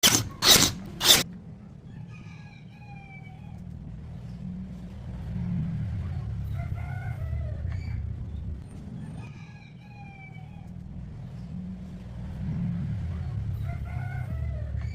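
Three sharp knocks, then a rooster crowing four times in drawn-out calls over a steady low rumble.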